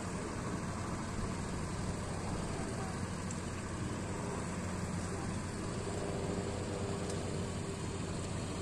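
Steady outdoor din with a constant low engine hum, as of farm machinery running at a distance.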